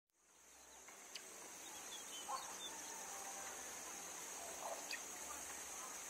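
Outdoor ambience that fades in from silence: a steady high-pitched insect drone, with a few faint bird chirps and small clicks.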